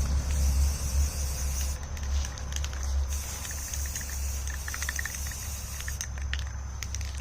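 Aerosol can of Rust-Oleum camouflage spray paint hissing as a coat goes onto the helmet, strongest from about two seconds in to about six seconds in, with a few light clicks. A low steady rumble runs underneath.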